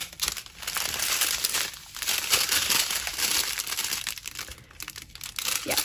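Small plastic bags of diamond-painting drills being handled and sorted, crinkling in irregular bursts with brief lulls about two and four seconds in.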